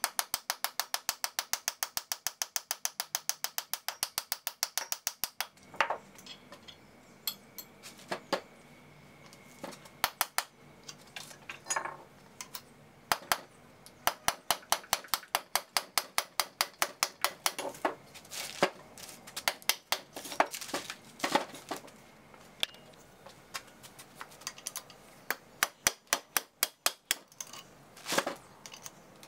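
Light hammer blows on a steel drift punch, metal on metal, driving the shaft out of the cast-iron countershaft bracket of a 1927 South Bend lathe. A fast even run of about seven taps a second lasts for the first five seconds, then come bursts of taps broken by short pauses.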